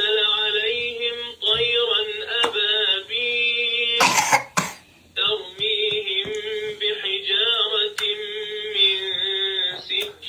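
One short cough about four seconds in, over a voice singing or chanting on a steady pitch.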